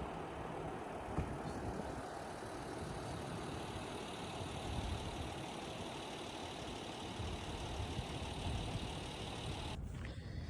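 Steady roar of Pacific Ocean surf on a sandy beach, with wind buffeting the microphone as an uneven low rumble. The roar drops away abruptly near the end.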